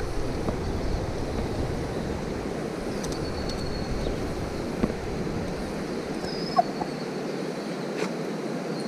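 Steady outdoor rush of wind and flowing river water. The low wind rumble on the microphone drops away about six and a half seconds in, and there are a few faint clicks.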